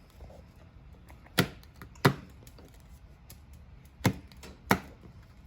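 Wood fire in a fireplace crackling: four sharp, irregularly spaced pops over a low steady background.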